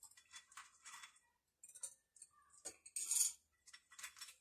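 Sugar cubes handled in a small glass bowl with gloved fingers: scattered light clicks and rustles, with a louder one about three seconds in.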